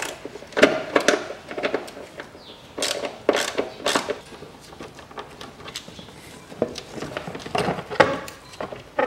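Socket ratchet with a 10 mm head clicking in short bursts as bolts on a plastic splash shield are undone, with sharp knocks and clinks of the tool being handled.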